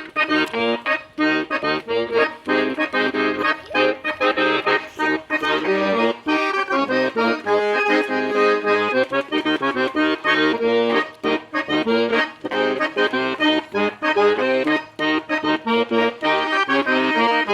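Accordion (gaita) playing a bugio, the southern Brazilian gaúcho dance rhythm: a melody on the right hand over a steady, repeating bass accompaniment.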